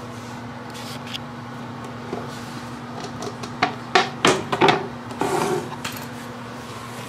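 Hard plastic toilet seat and lid being handled on the floor: a few sharp knocks and clicks bunched about four seconds in, then a short rub.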